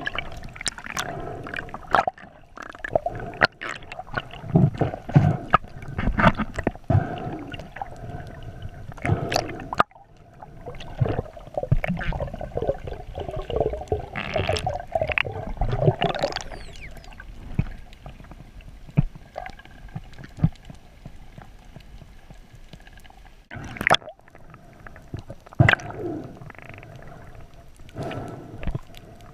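Water movement heard underwater during a breath-hold dive: gurgling with many scattered sharp clicks and knocks.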